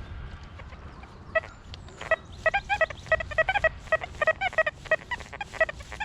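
XP Deus 2 metal detector sounding a rapid run of short, warbling beeps as the coil sweeps over a target, starting about two seconds in. In full-tones mode the pitch keeps wavering, because the hot, mineralised soil makes the tones unstable and the target hard to pinpoint.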